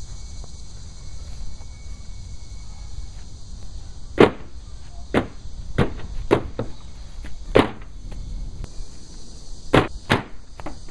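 Hand strikes on a half watermelon on a plastic folding table: a series of about nine sharp thuds, the loudest about four seconds in, with a quick pair near the end as the melon is smashed.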